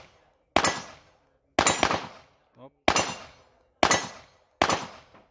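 Handgun shots fired one at a time: five shots about a second apart, each ringing out briefly after the crack.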